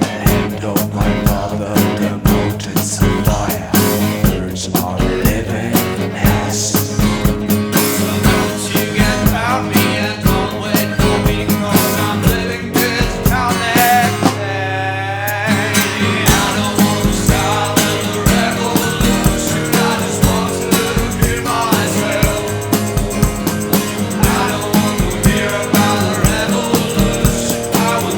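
Psychedelic rock instrumental passage with guitar and a drum kit keeping a steady beat. About halfway through, the drums drop out for a couple of seconds under a sweeping effect, then come back in.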